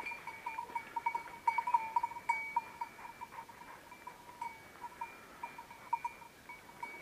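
A hunting dog's collar bell ringing in irregular jingles as the dog moves through the undergrowth. It rings densely at first and more sparsely after about three seconds.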